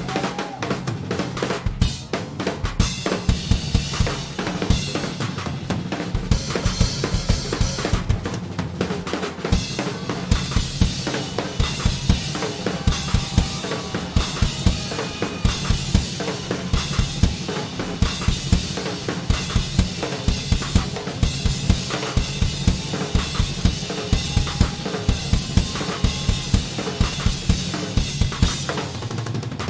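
A live rock band playing an instrumental passage: a drum kit driving a steady, fast beat of kick drum, snare and cymbals over sustained low notes.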